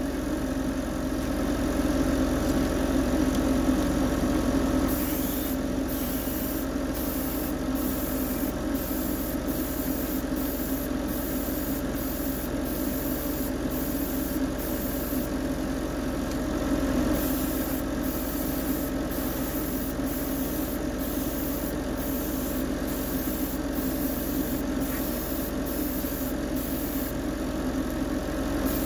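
Steady motor hum of a spray booth's extraction fan, with the high hiss of an airbrush spraying paint in short on-off passes from about five seconds in.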